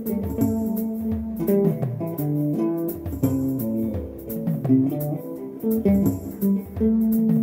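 Background music led by plucked guitar over a bass line, with a steady beat.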